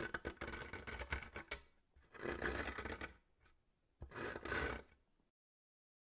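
Faint scratching of a brush marker's tip on paper: scattered light scratches at first, then two short scratchy strokes, about two and four seconds in.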